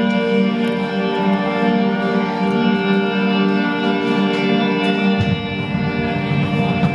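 Live band playing loud amplified music: held electric guitar chords over a drum kit, with the chord changing and lower notes coming in about five seconds in.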